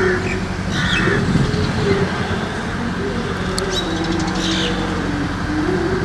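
A steady drone whose pitch slowly wavers up and down, with a few short bird chirps over it.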